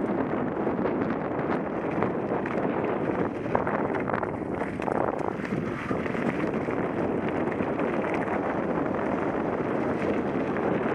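Wind rushing over a helmet camera's microphone as a mountain bike rides downhill, with the tyres crunching over loose gravel and dirt and frequent small rattles from bumps in the trail.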